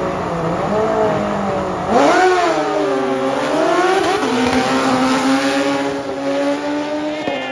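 Drag-racing sportbikes at the starting line, then launching about two seconds in. The engines rev hard, the pitch sweeping up, dipping and climbing again, then holding a steady high note as the bikes run down the strip.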